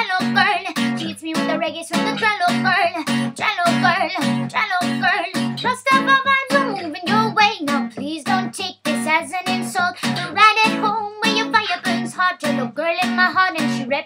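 A woman singing while strumming an acoustic guitar in a steady, even rhythm.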